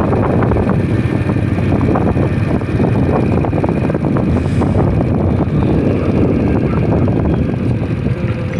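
Riding noise from a motor scooter on a rain-soaked road: a steady, loud wind rumble on the microphone, mixed with the scooter's running engine and its tyres on wet pavement.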